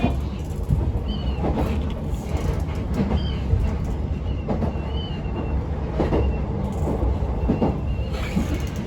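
Local electric train running along the line, heard from inside the car: a steady low rumble with occasional clacks over the rail joints and brief high squeaks from the wheels now and then.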